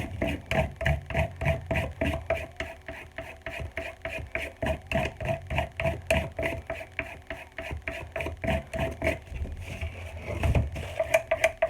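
Ginsu serrated steak knife drawn back and forth through a block sharpener in quick, even strokes, about four a second, to restore the serrated edge.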